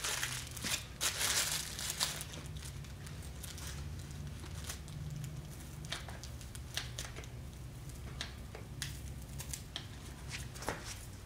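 Plastic bags crinkling and rustling as bagged quick-grip bar clamps are handled and fitted onto a mold, loudest in the first couple of seconds. Scattered sharp clicks follow, over a steady low hum.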